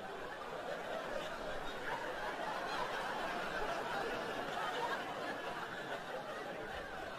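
Theatre audience laughing together, swelling to a peak in the middle and easing off toward the end.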